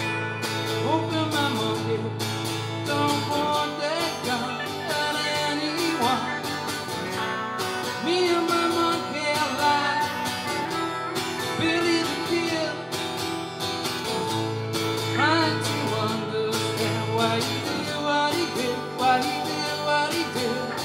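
Live electric and acoustic guitar duo playing, with the electric guitar taking lead lines full of bent, sliding notes over the acoustic's rhythm.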